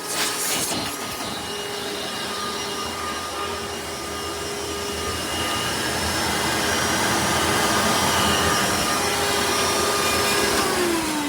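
1997 Hoover Decade vacuum cleaner running, its motor giving a steady whine over an airy rush, with a short burst of noise in the first second. Near the end the whine falls steadily in pitch as the motor winds down.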